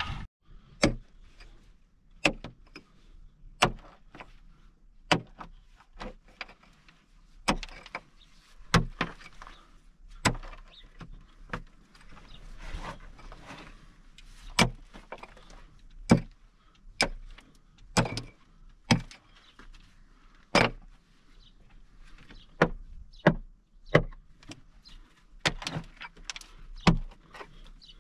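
A digging tool repeatedly striking hard, stony earth, about one sharp blow every second or so, with faint scraping of soil and stones between the strikes.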